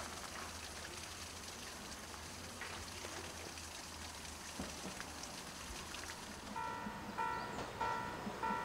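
Faint outdoor background, then about six and a half seconds in a railway level-crossing warning bell starts ringing, a steady electronic clang repeating about twice a second.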